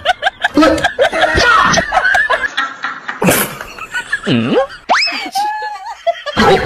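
Laughter, a rapid string of short 'ha-ha' bursts, for the first couple of seconds. Then comes a short hissing burst, a tone that swoops down and back up, and a fast rising glide about five seconds in.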